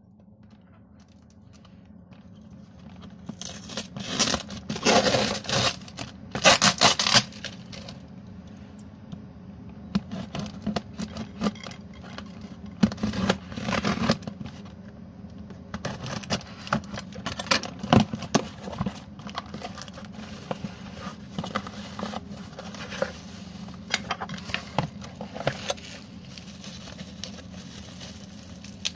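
Parcel being unpacked by hand: scissors cutting and packing tape being torn from a cardboard box, with cardboard scraping. Later, bubble wrap crinkles and crackles as wrapped items are pulled out. Several loud tearing bursts come in the first half, and short crackles and clicks follow.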